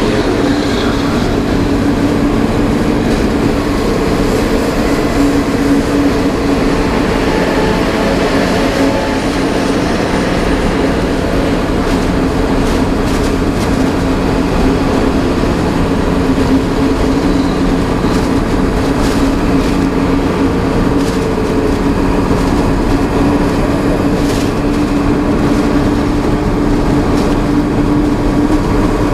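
Steady drone of a VW Worker 15-180 4x4 truck's diesel engine and tyres at highway cruising speed, heard inside the cab, with a constant low hum.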